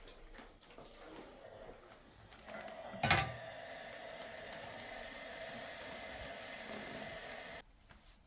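A click, then a small electric motor whirring steadily for about five seconds before cutting off abruptly.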